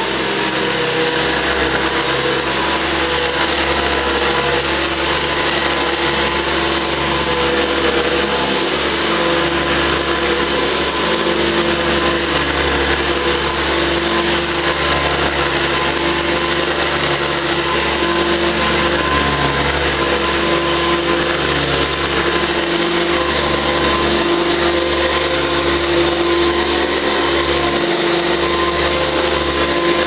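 A 1975–76 Hoover Convertible U4123 upright vacuum cleaner running steadily as it is pushed over carpet. Its motor and beater-bar brush roll make a loud, even whine.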